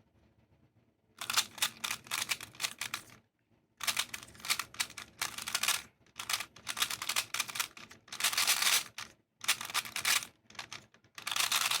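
GAN 356i 3x3 speedcube being turned fast, its plastic layers clicking in rapid runs of one to two seconds with brief pauses between them. This is the sound of a speedsolve in progress.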